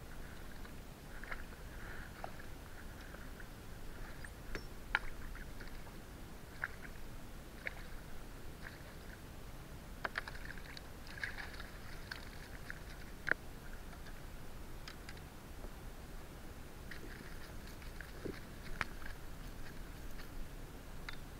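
Irregular small water splashes and sharp wet clicks as a hooked bream thrashes at the surface beside a kayak and is scooped up in a landing net.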